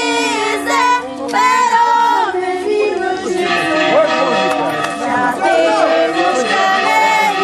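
Music with voices singing, held notes overlapping throughout.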